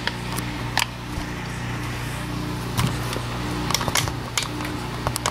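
Front-loading washing machine running and shaking violently, a steady low hum with a repeating throb and sharp knocks now and then.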